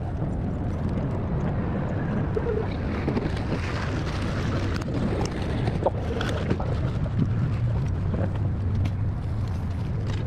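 Steady low rumble of outdoor background noise, with a few faint clicks and knocks.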